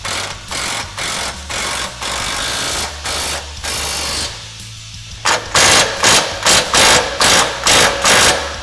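Milwaukee Fuel cordless impact wrench hammering in a string of short trigger bursts as it fully tightens the radius-arm bolts. The bursts come louder and sharper after a short pause about five seconds in.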